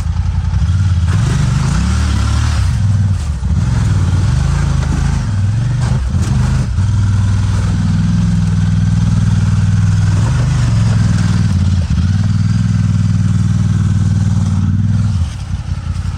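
An off-road vehicle's engine revving up and down under load, its pitch rising and falling repeatedly, with a few sharp knocks from the vehicle. The engine drops back near the end.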